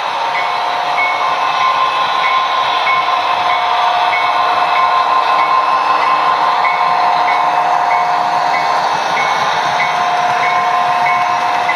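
HO-scale model freight train rolling past, its DCC sound-equipped Athearn Union Pacific DDA40X and SD40-2 playing diesel engine sound over the steady hum of the running models. A short bell-like ding repeats about one and a half times a second.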